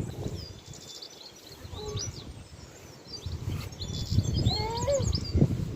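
Small birds chirping, with many short high calls and quick chirps and a few lower calls, over a low background noise that grows louder in the second half.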